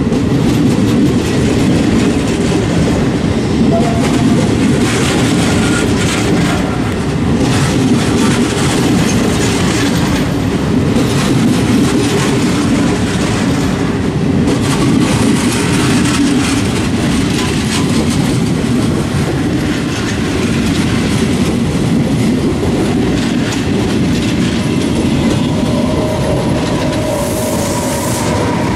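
Locomotive-hauled passenger train rolling slowly past along a station platform: a steady rumble of coach wheels, with a rapid clickety-clack of wheels over rail joints.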